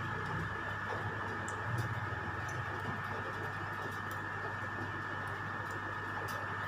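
Steady background hum with a faint high whine, and a few faint ticks; no distinct event.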